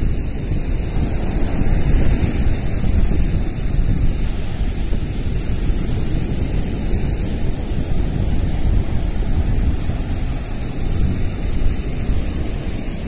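Surf washing steadily onto a sandy beach, with wind buffeting the microphone and adding a low rumble.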